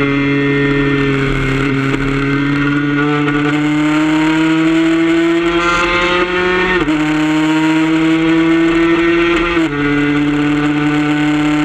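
Suzuki RG150 two-stroke single-cylinder engine under full throttle, heard onboard. The revs climb steadily and drop sharply twice, about seven and ten seconds in, as it upshifts.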